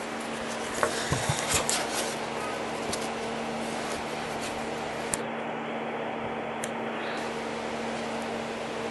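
Steady machine hum, like a fan running, with a short run of knocks and clatter about a second in and a couple of single clicks later.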